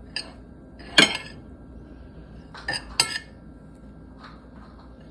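Metal cutlery clinking against a plate as a syrup-topped pancake is cut for tasting. There are a few sharp clinks: the loudest about a second in, and two more close together about three seconds in.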